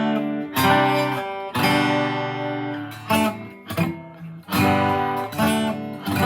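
2002 Gibson J45 acoustic guitar strummed, a series of chords each ringing out and fading before the next. It is fitted with Elixir coated strings and a new bridge.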